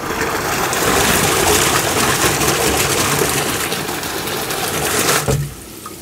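Titan TTB583PMP sump pump running flat out in a water butt, its discharge water gushing out loudly. It stops suddenly about five seconds in.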